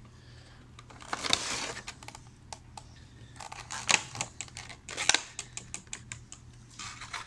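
Funko Pop box being opened and the vinyl figure pulled out of its clear plastic insert: a rustle of cardboard and plastic, then a run of crackles and sharp clicks with a few louder snaps.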